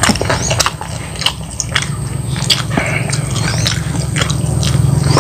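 Close-up mouth sounds of chewing crispy, thick-battered fried chicken, with irregular sharp crackles and crunches from the fried coating and wet smacking. A steady low hum runs underneath.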